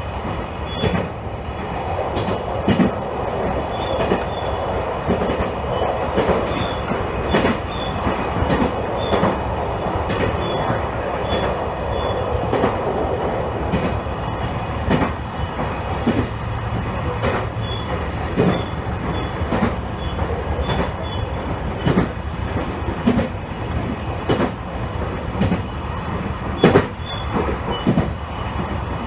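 Electric train running along the line, heard from inside the front of the car: a steady rumble of wheels on rail with irregular sharp clacks as the wheels pass over rail joints.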